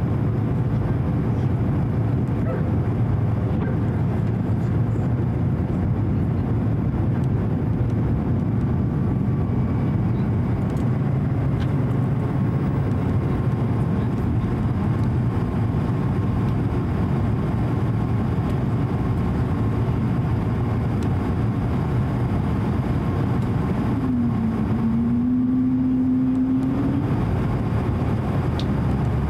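Steady cabin noise of an Airbus A220-100 in flight: a constant low rumble of its geared turbofan engines and the airflow past the fuselage, with faint steady tones over it. A brief low hum joins in for about three seconds near the end.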